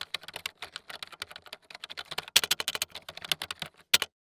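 Fast computer-keyboard typing: a dense run of quick key clicks that stops about four seconds in.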